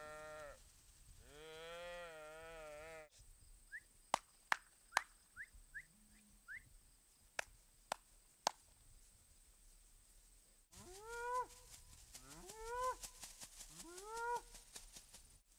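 Cattle mooing: two long, wavering moos in the first three seconds, then three shorter, higher-pitched bawls that rise and fall in the last five seconds. Between them come a few sharp clicks and short high chirps.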